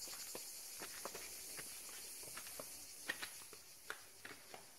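Footsteps walking at an even pace, about two to three steps a second, under a steady high hiss of cicadas that thins out about three seconds in.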